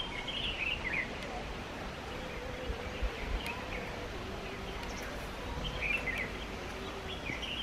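Birds chirping: about four short calls a few seconds apart over a steady low rumble of outdoor background noise.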